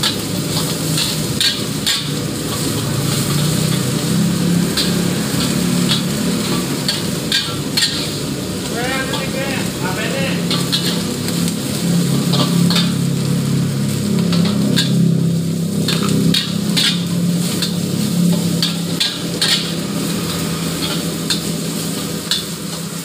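Egg and garlic sizzling in a hot steel wok while a long-handled steel wok spatula stirs and scrapes through them, striking the wok again and again with short metallic clanks.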